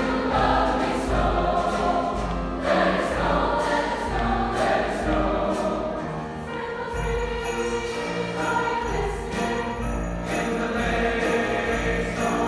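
Large choir singing with piano accompaniment, with a steady beat of light high percussion running through the music.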